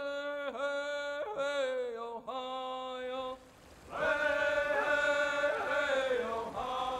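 A voice chanting in long held notes that slide up and down between pitches, in two phrases with a short break about three and a half seconds in.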